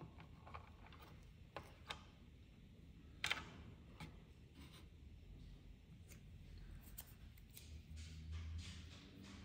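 Faint clicks and light scraping of small computer hardware being handled, with a sharper click about three seconds in.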